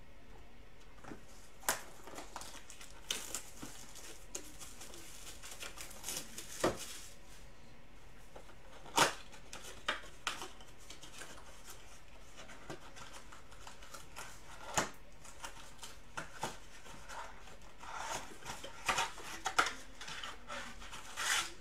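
A sealed Optic basketball card box being handled and opened by hand: scattered sharp clicks, tearing and rustling of its wrapping and cardboard, with a denser run of crinkling near the end as the flaps come open.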